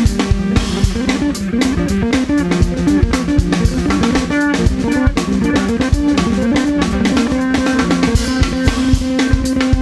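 Live instrumental band music: a fast plucked-string melody on an Isan instrument over a drum kit and bass guitar. The melody settles onto a held note about seven seconds in while the drums keep going.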